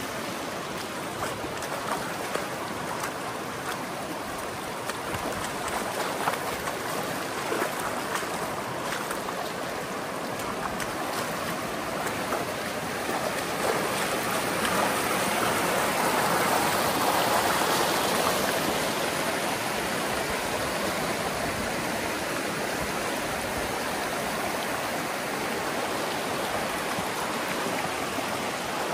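River water flowing, a steady wash of noise that grows louder around the middle and then settles a little. There is a scatter of small clicks in the first half.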